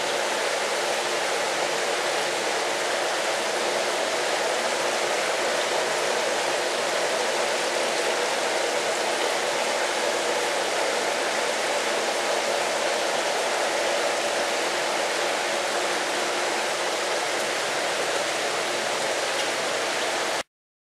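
Steady rush of running water from a hatchery's rack of flow-through egg-incubation jars, cutting off suddenly near the end.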